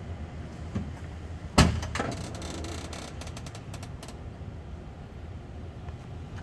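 A single sharp knock with a short ringing tail about one and a half seconds in, followed by a few faint clicks, over a steady low hum.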